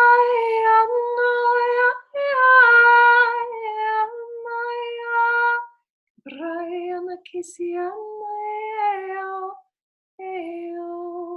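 A woman singing long wordless vocal tones, each note held steady. The notes sit higher for the first half, then, after a short break about six seconds in, drop to a lower held pitch.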